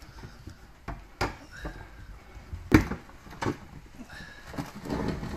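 Scattered clicks and knocks of metal oven-door parts being handled as the door hinge is taken off, with one sharper knock about halfway through and a rustle of handling near the end.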